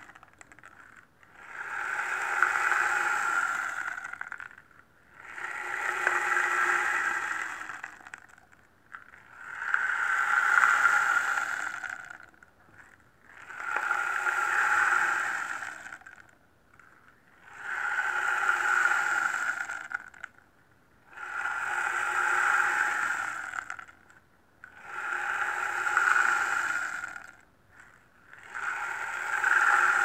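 Indonesian rain stick turned over again and again, its fill cascading down the tube in a rush that swells and fades over about three seconds, about once every four seconds, with short near-silent gaps between pours.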